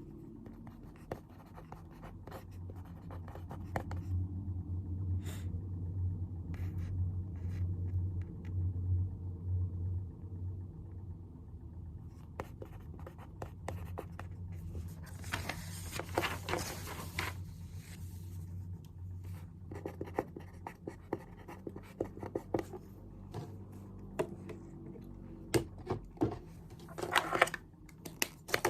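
Pen writing on paper: irregular scratchy strokes coming in bunches, with scattered small taps.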